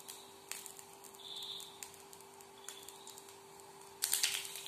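Seeds heating in oil in a kadai: a few scattered pops and ticks, then about four seconds in a dense crackling as the seeds start to splutter.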